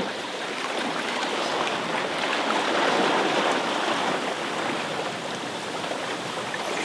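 Steady rush and hiss of foaming water streaming past the hull of an Allied Seawind sailboat under way under sail.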